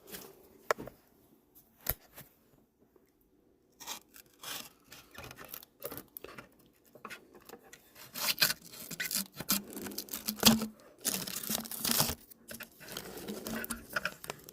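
A pocket knife cutting and a strip of material tearing and crinkling as it is peeled off a headlight assembly, in irregular bursts from about four seconds in, after a few light clicks.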